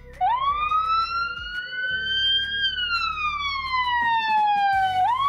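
Ambulance siren wailing. It sweeps up quickly at first and then slowly climbs for about two and a half seconds, falls slowly for the next two and a half, and sweeps sharply up again near the end.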